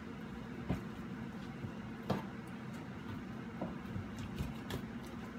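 Chef's knife trimming raw chicken on a plastic cutting board: a few light knocks of the blade against the board, over a steady low room hum.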